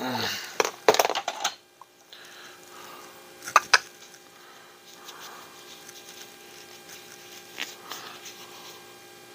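Small RC axle parts clicking and tapping as they are handled on a bench mat, with one sharp click about three and a half seconds in, and the soft rubbing of a cloth towel wiping the parts clean.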